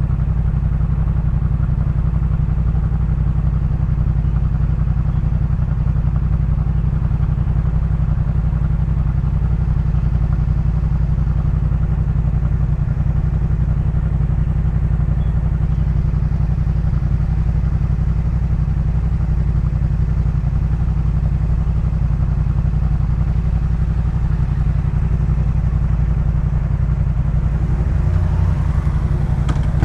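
Yamaha MT-07's 689 cc parallel-twin engine idling steadily through a Jeskap K4 full aftermarket exhaust, at an even, unchanging pitch.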